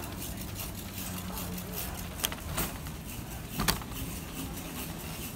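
Large-store background: a steady low hum with faint distant voices. Two sharp clicks come about two seconds in and about three and a half seconds in, the second the louder.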